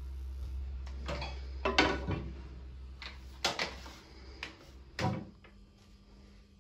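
Knocks and clatter of a wooden broom handle being lifted out from a corner, the loudest about two seconds in, then a single sharp knock about five seconds in as a cupboard door is opened.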